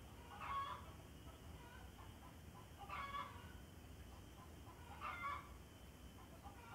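A chicken calling three times, short clucking calls about two and a half seconds apart.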